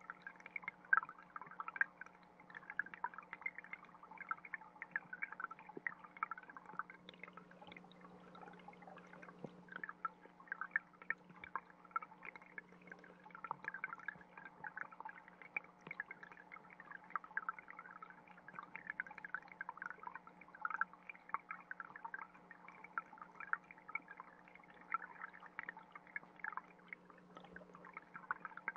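Stream water heard underwater through a GoPro in its housing: a dense, irregular patter of small pops and crackles from the trickling flow over a steady low hum.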